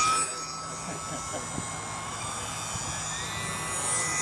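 High whine of a UMX Turbo Timber micro RC plane's electric motor and propeller, loudest at the start as the plane passes close by, then lower as it moves away. About three seconds in, a higher whine rises in pitch and holds.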